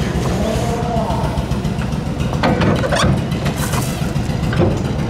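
A steady low engine rumble, with faint voices over it.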